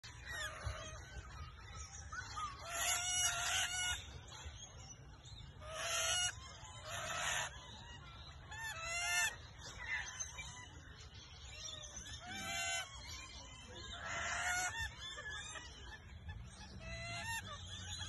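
Rainbow lorikeets calling: short bursts of harsh, chattering calls every few seconds, some single and some in quick runs of arcing notes, over a steady low rumble.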